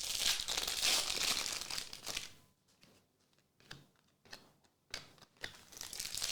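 Foil trading-card pack wrapper crinkling as it is handled and torn open for about two seconds, then a few light clicks and taps of cards, with more crinkling starting near the end.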